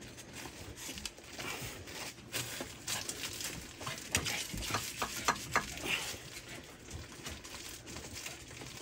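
Scattered clicks, taps and rustles of hands handling hose fittings and parts, with a cluster of short sharp clicks about four to six seconds in.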